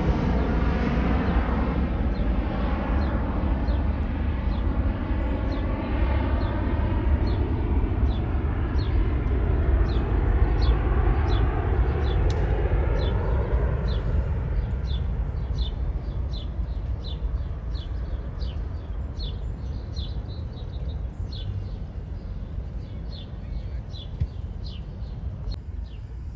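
Airbus A330 jet airliner climbing away after takeoff, its engine noise slowly fading with a shifting, wavering sweep in it. A small bird chirps over it about twice a second from a couple of seconds in.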